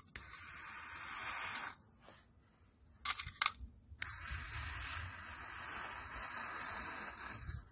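Lighting attempts on a small stove's fuel, likely with a gas lighter. There are two stretches of steady hiss with a few sharp clicks between them, about three to four seconds in. The fuel does not catch.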